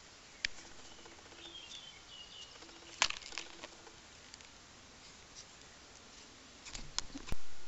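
Small objects handled on a wooden bench, making a few sharp clicks and knocks: one loud click about three seconds in and a cluster ending in a louder knock near the end, over a quiet background with a few faint bird chirps about two seconds in.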